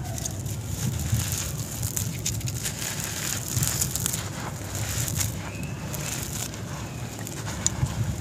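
Hands crushing a lump of dry cement-and-sand mix and crumbling the dry, gritty floor: a dense, irregular run of soft crunches and crackles as the grit breaks and falls.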